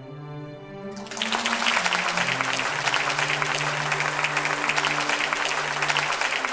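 Audience applauding, starting about a second in, over background music with long held notes.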